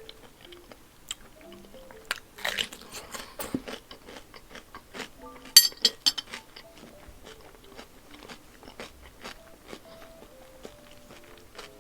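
Close-miked mukbang eating: a person biting and chewing food, with wet smacks and crunchy bites, loudest about two and a half seconds in and again around six seconds in.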